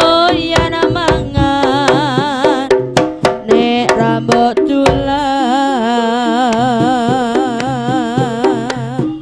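Javanese jaranan ensemble playing an instrumental interlude: sharp kendang drum strokes under a melody with wide vibrato, the melody held in long wavering notes from about halfway through.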